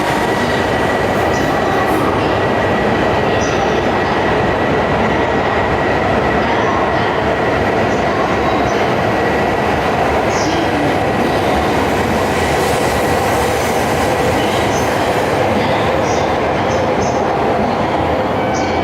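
Shinkansen train moving along the platform: a steady, loud running noise of wheels and air, with a faint steady high whine.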